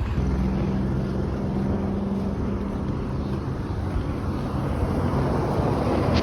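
A vehicle engine running steadily amid wind-like noise, its low hum fading out after about three seconds.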